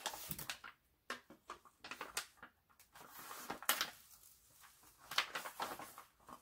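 Protective cover film of a diamond painting canvas being peeled back from the adhesive and handled, giving irregular crackling and rustling.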